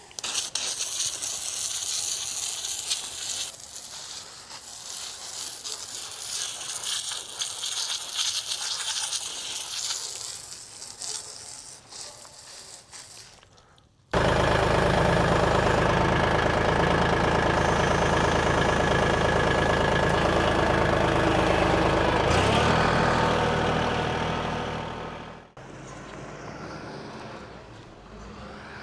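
A steady high hiss, then from about halfway through a loud, steady engine running. The engine sound dies away near the end.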